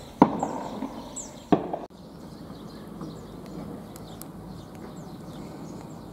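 Two shotgun shots just over a second apart, each with a short echoing tail, fired at passing turtle doves.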